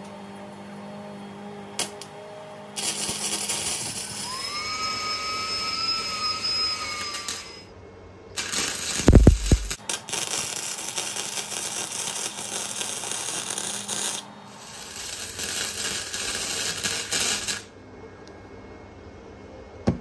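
Wire-feed (MIG) welder running three welds of a few seconds each on a steel collar, each a crackling hiss, with a steady whine alongside the first. A heavy thump about nine seconds in is the loudest sound.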